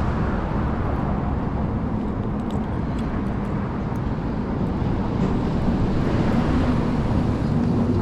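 Steady rumble of road traffic from the bridge overhead.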